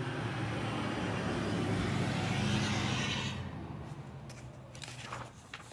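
A car passing, its engine hum and tyre noise swelling and then fading over about three seconds. Near the end comes the rustle of a paperback book's page being turned.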